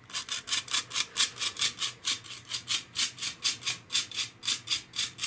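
Handheld metal cup flour sifter being worked by hand, its wire agitator scraping against the mesh as flour falls into the bowl: a steady rhythm of about five scraping strokes a second.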